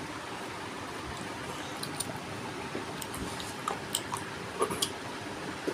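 Eating with the hands: short wet smacks and clicks from chewing and from fingers working rice, curry and a chicken piece, starting about two seconds in, over a steady background hiss.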